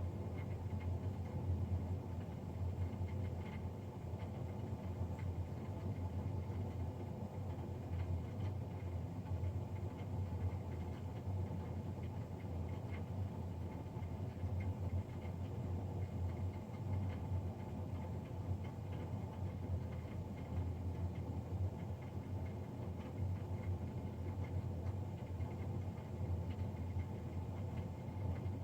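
Navien NCB-240 gas combi boiler's combustion fan running with a loud, steady low drone that has a rough, fluttering texture.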